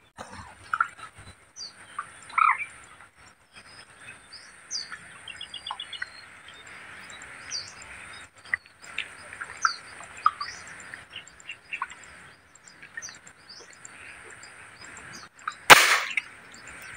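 Birds chirping and calling over a steady high insect drone, and about three-quarters of the way through a single sharp airgun shot, the loudest sound here, fired at a fish just under the water.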